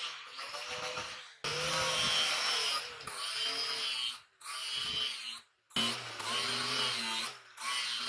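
Angle grinder with an abrasive disc grinding the steel jaw of a pincer held in a vise, its motor pitch dipping and recovering as it bears on the metal. It runs in several stretches that start and stop abruptly.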